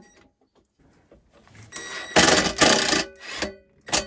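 Ryobi cordless drill-driver driving a screw into a wooden frame: one run of about a second starting about two seconds in, then a shorter burst.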